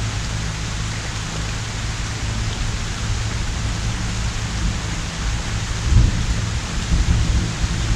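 Pouring rain falling steadily, with thunder rumbling low beneath it. The rumble swells louder about six seconds in and again near the end.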